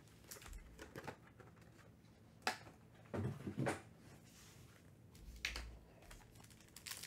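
Quiet handling of foil-wrapped trading card packs: a sharp tap about two and a half seconds in, then a few soft thumps as the packs are set down in a stack on the table.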